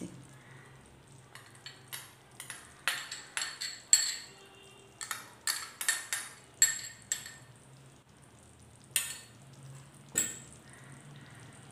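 A metal spoon clinking and scraping against a ceramic bowl in an irregular run of sharp taps, some with a brief high ring, as whipped cream is scraped out of the bowl. The taps come thickest in the middle and stop about a second before the end.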